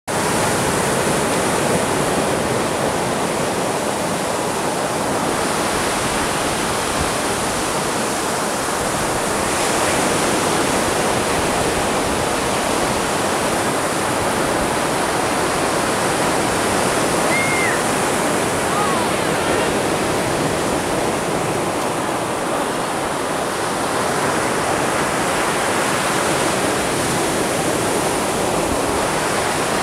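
Atlantic surf breaking and washing up the beach: a steady wash of water noise that swells gently every few seconds.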